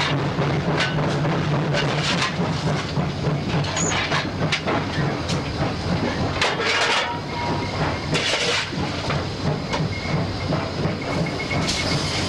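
US Army 2-8-0 steam locomotive No. 610 heard from inside its cab: a steady low rumble with rattles and clanks, and bursts of steam hiss a little past six seconds, around eight seconds and near the end.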